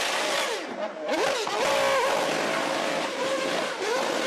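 Formula 1 car engine revving hard, its pitch rising and falling sharply several times, with a short dip about a second in and another near the end. The car is spinning its rear tyres in a smoky burnout.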